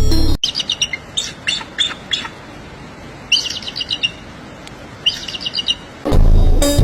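A songbird chirping in quick runs of short, high notes, with pauses between the runs. Music plays briefly at the start and comes back loudly about six seconds in.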